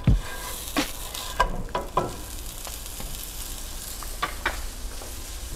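Butter sizzling under a grilled cheese sandwich in a nonstick frying pan, a steady hiss. A wooden spatula knocks and scrapes against the pan several times, loudest just at the start as the sandwich is turned over.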